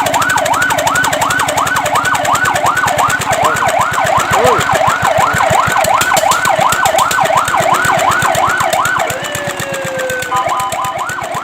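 Fire truck's electronic siren in a fast yelp, its pitch sweeping up and down about three times a second. About nine seconds in it changes to a long, slowly falling tone, then a rapid two-tone warble, before the yelp returns near the end. An engine runs underneath.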